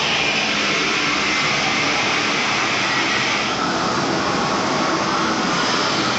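Electric drill clamped in a bench vise, running steadily and spinning a small bronze finial held in its chuck. A higher hiss over the motor noise drops away about three and a half seconds in.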